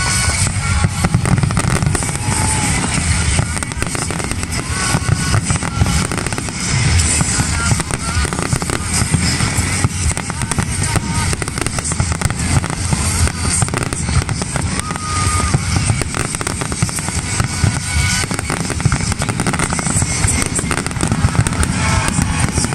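Fireworks bursting in a rapid, continuous barrage of booms and crackles, with music playing alongside.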